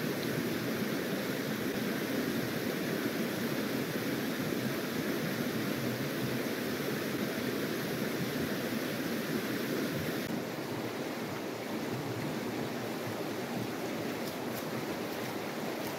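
Fast, shallow river rushing over stones, a steady noise of running water that drops a little in level about ten seconds in.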